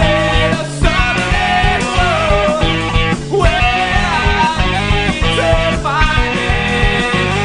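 Emo rock song with a full band playing: electric guitars over bass and drums.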